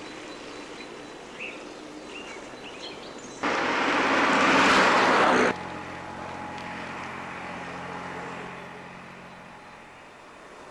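A few birds chirping over quiet outdoor ambience. Then a loud rushing noise lasts about two seconds, starting and stopping abruptly, and gives way to a steady engine hum that fades away.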